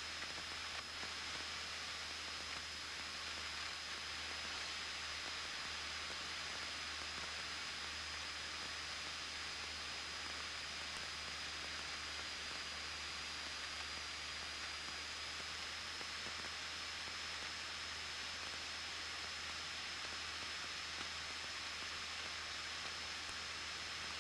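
Steady hiss of a cockpit intercom audio feed, with a thin steady high whine and a faint low hum under it.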